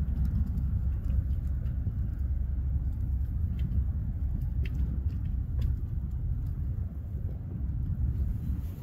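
Wind noise on the microphone: a low, uneven rumble, with a few faint clicks scattered through it.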